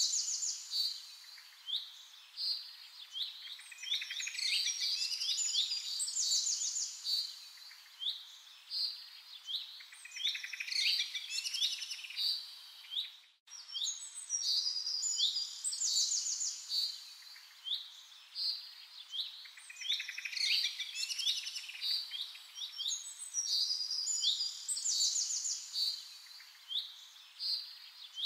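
Songbirds singing and chirping, many short trills and calls overlapping, over a faint hiss. The sound cuts out for a moment about halfway through, then the same birdsong starts again.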